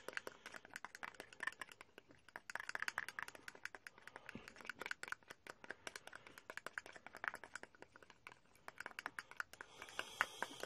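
Thin metal stirring rod scraping and tapping against the inside of a small plastic cup while thick gold paint is mixed: a fast, irregular run of faint clicks and scrapes.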